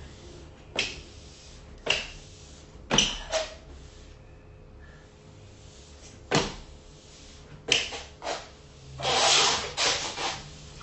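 Scattered knocks and thumps of a person moving about on a hardwood floor, with a longer scuffing swish about nine seconds in as paper sheets slide across the boards.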